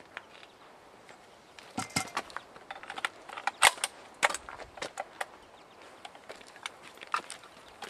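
Scattered sharp clicks and clacks of a rifle being handled and readied, about eight in all, the loudest about three and a half seconds in.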